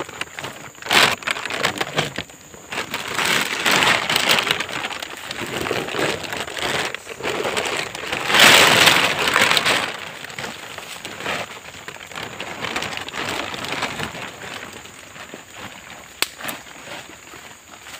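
Thin plastic bag crinkling and rustling as it is handled, with a louder burst of crinkling about eight to ten seconds in.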